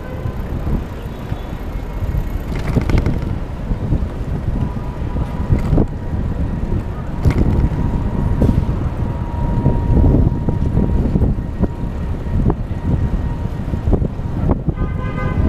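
Wind rumble and road noise at a GoPro mounted on a moving Citi Bike in city traffic, with scattered knocks as the bike jolts over the pavement. A short pitched tone sounds near the end.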